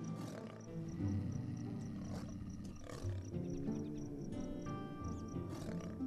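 A pair of mountain lions (cougars) snarling and growling at each other in several short, harsh bursts after mating, over background music.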